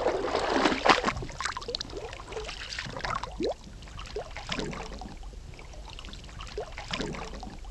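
Water bubbling and gurgling, with scattered short rising bubble sounds. It is loudest in the first second or so, then steadier and quieter.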